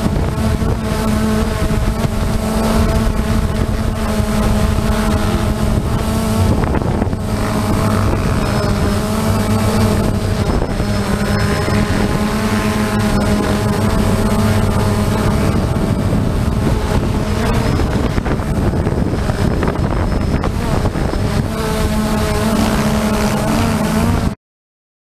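Camera drone's motors and propellers buzzing steadily from on board, several pitches held level with slight wavering. The sound cuts off suddenly near the end.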